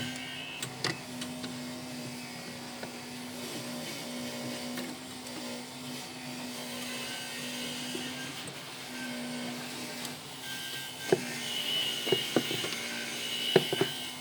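A small electric motor running with a steady, even hum, dipping briefly once partway through, with a few sharp knocks near the end.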